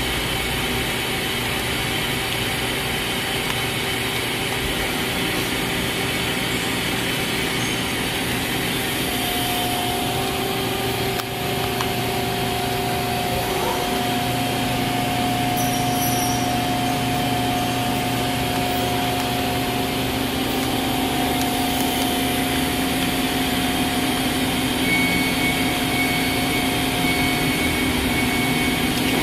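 Okuma 2SP-150HM CNC turning center running with its spindle turning: a steady machine hum and whine. A new tone comes in about a third of the way through, and a lower one takes over about halfway.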